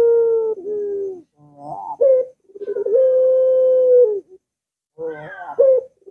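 Barbary dove (puter pelung, the long-voiced type) cooing in repeated phrases, each a few short rising notes followed by one long, level coo. A long coo ends with a drop in pitch about a second in, a full phrase comes in the middle, and the next phrase begins near the end.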